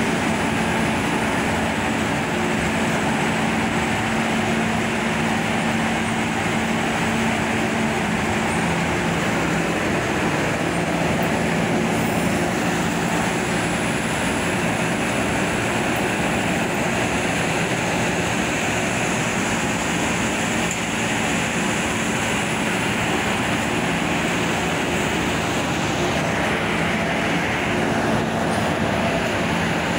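Plastic film blowing machinery running: the steady mechanical din of an extruder's drive motor and blower, with a steady hum that steps down in pitch about nine seconds in.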